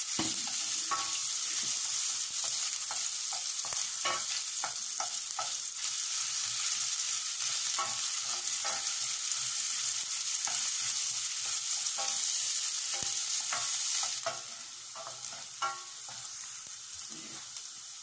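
Cumin seeds and chopped ginger sizzling in hot oil in a stainless steel pan, stirred with a wooden spatula that scrapes and taps against the pan. The sizzle quietens about fourteen seconds in.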